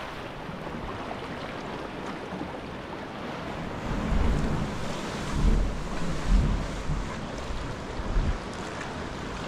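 Steady rush of sea water and wind, with gusts of wind buffeting the microphone from about four seconds in and again near the end.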